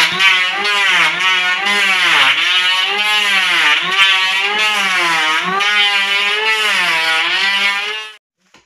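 Handheld electric planer running as it shaves the edge of a wooden door, its motor whine dipping and recovering in pitch again and again as the blades bite into the wood. It cuts off abruptly about eight seconds in.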